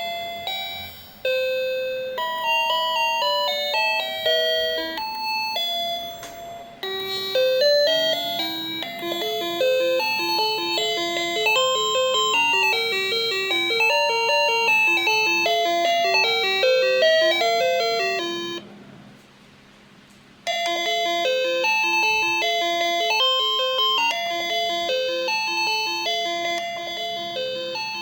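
XINHUI 9644K plug-in wireless doorbell receiver playing its electronic chime tunes, one short melody after another in simple beeping tones. There is a silent gap of about two seconds about two-thirds of the way in, after which another tune starts.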